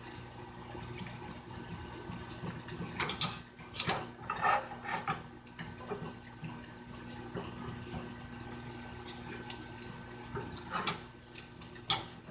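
Butter-and-flour roux cooking in a pan, a soft sizzle, with a utensil stirring and scraping against the pan in two spells of clicks and knocks, one a few seconds in and another near the end, over a steady hum.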